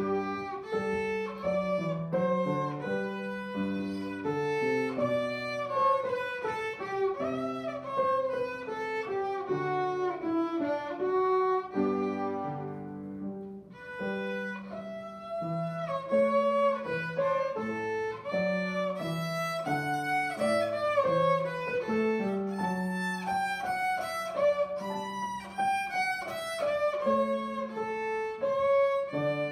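A child playing a violin piece with piano accompaniment: bowed melody notes changing every second or so over steady lower piano notes.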